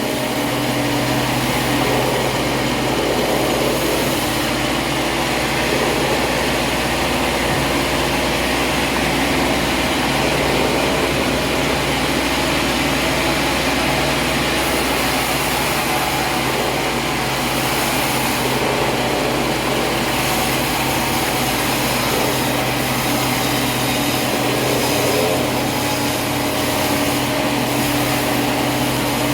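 Sawmill machinery running steadily: a motor's drone with the continuous noise of a saw, unchanging throughout.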